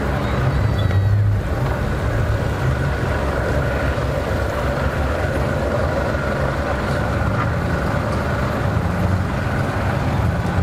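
Outboard motor of a pontoon boat running at low speed as the boat pulls away, a steady low engine rumble.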